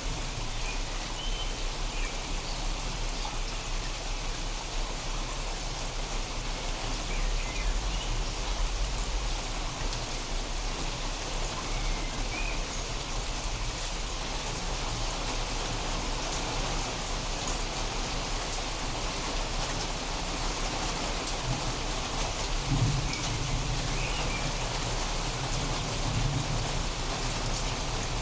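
Steady heavy rain falling and pattering on surfaces during a thunderstorm. A low rumble of distant thunder swells near the end.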